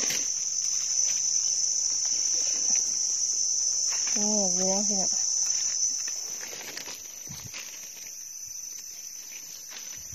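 Forest insects droning steadily in one high-pitched tone. The drone is loud for the first six seconds, then fainter.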